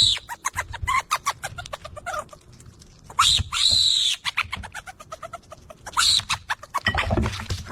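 A bird calling: three loud squawks about three seconds apart, with quick runs of short calls in between.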